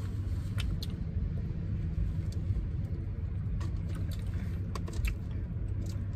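Steady low hum inside a parked car, with scattered small clicks from pretzel chewing and handling of food and dip cups.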